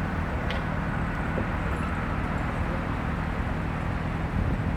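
An engine running steadily with a low hum, which cuts off suddenly near the end.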